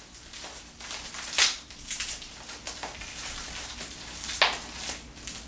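Thin plastic nursery pot and plant being handled: irregular crinkling and crackling, with two sharper cracks, about a second and a half in and about four seconds in.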